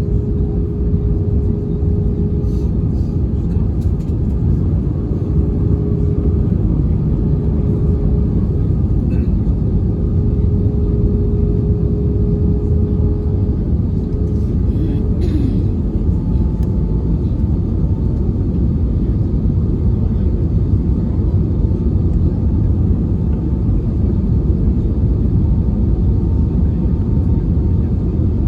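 Airliner cabin noise on the approach to landing: the engines and the rushing air make a steady, loud low rumble. A steady hum runs through it and fades about halfway, and a fainter, higher tone follows.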